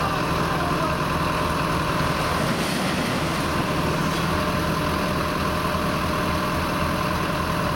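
Diesel engines of truck-mounted mobile cranes running steadily under load as they lift and turn a heavy scrap-shear frame.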